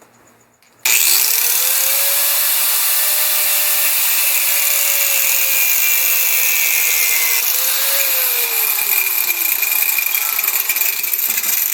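Handheld power tool cutting a hole: the motor spins up suddenly about a second in and runs loud and steady under load, its pitch slowly sagging, rising briefly and dropping again near the end before it stops suddenly.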